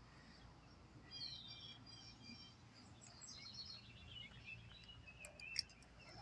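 Faint high bird chirps: a quick run about a second in, then a longer series of chirps stepping down in pitch from about three seconds in. A single sharp click near the end.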